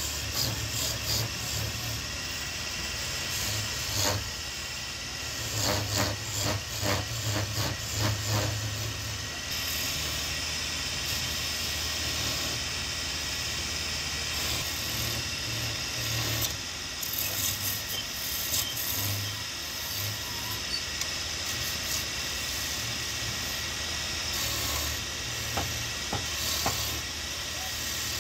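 Wood lathe running with a steady hum while a hand-held turning chisel cuts into the spinning wooden spindle, a hissing scrape of the cut that comes and goes in stretches as the tool is pressed to the wood.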